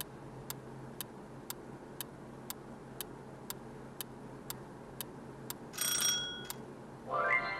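Countdown-timer sound effect: a clock ticking steadily, two ticks a second, which stops after about five and a half seconds as the timer runs out. A short bell-like ring follows, then a rising tone near the end.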